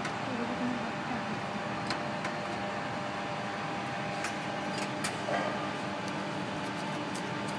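Steady hum and hiss of a laminar flow cabinet's blower. A few light clicks come from a metal spatula tapping against a small glass bottle as soil is scooped into it.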